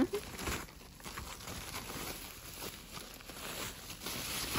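Rustling and crinkling of a white plastic protective wrap as it is pulled off a portable speaker by hand, in irregular scrunches.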